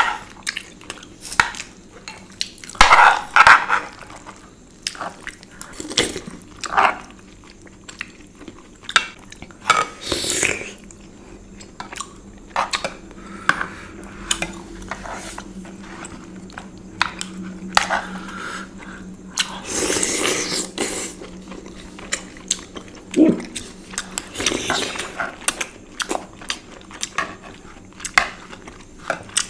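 Close-up eating of Indian sweets: wet chewing and mouth sounds with scattered sharp clicks of utensils against dishes, and a few short louder noisy bursts.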